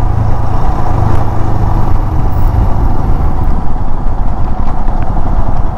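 Royal Enfield Himalayan's single-cylinder engine and the road rush heard from the rider's seat while cruising: a loud, steady low rumble with no change in pace.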